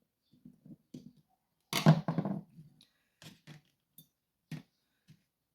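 Parts of a disassembled lever safe lock being handled: a sharp clack about two seconds in, then a few light clicks spaced out over the next few seconds.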